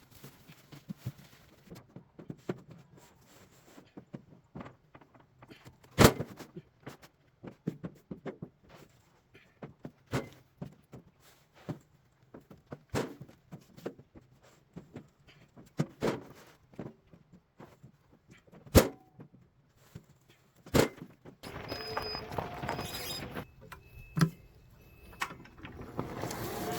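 Irregular knocks and thuds, two of them much louder than the rest. Near the end a denser, steady clatter sets in, with a few short high tones.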